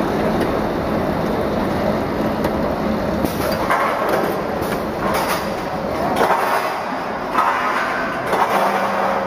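Stainless steel tube bagging machine running: a steady mechanical noise with a faint low hum, and a few short louder swishes roughly once a second in the second half.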